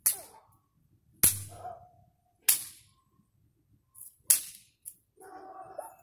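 A thin wooden stick struck against a tree trunk: four sharp whacks, a second or more apart.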